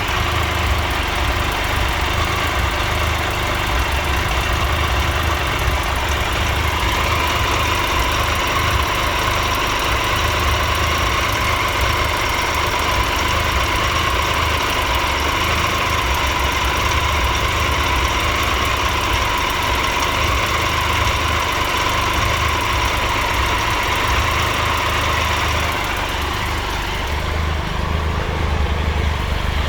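2013 Triumph Tiger Explorer's 1215 cc three-cylinder engine idling steadily with a ticking, rattling noise that remains after a valve clearance adjustment. The dealer traced the noise to a minor exhaust header leak.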